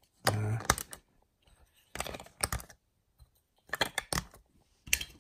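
Plastic LEGO Duplo bricks clicking and clattering as they are picked up and pressed onto a stack on a baseplate, in four short bursts of clicks.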